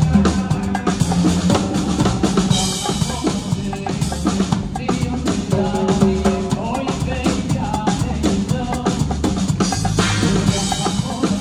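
Live band music with loud, busy drums and hand percussion played close by, over a full band with a singer.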